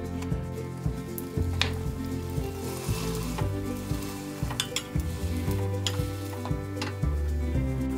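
Hotteok frying in oil, sizzling steadily while a stainless-steel hotteok press flattens it in the pan, with a few sharp clicks of the press. Background music plays under it.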